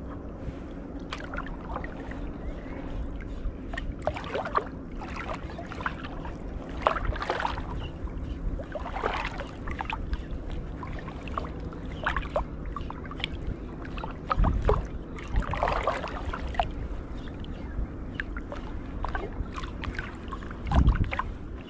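Small sea waves lapping and splashing close to the microphone, over a steady low rumble of wind and water, with two dull low thumps, one past the middle and one near the end.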